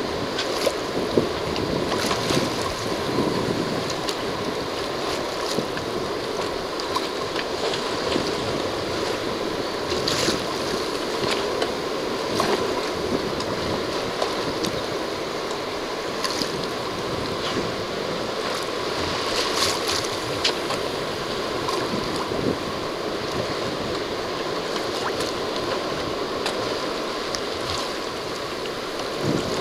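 Water rushing and splashing along a sailing yacht's hull as it moves through choppy water, with wind buffeting the microphone. It is a steady wash with occasional sharper splashes.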